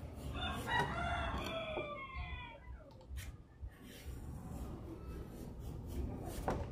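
A rooster crows once, a call of about two seconds that drops in pitch at its end, followed later by a few sharp knocks.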